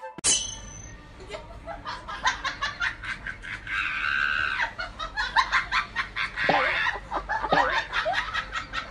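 People laughing, in quick repeated ha-ha pulses through most of the stretch.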